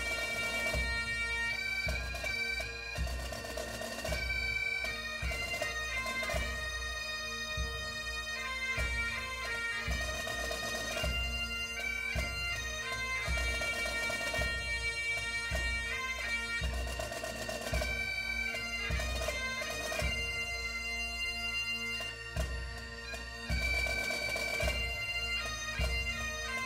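Background music of bagpipes playing a quick tune over steady, unbroken drones, with a low drumbeat underneath.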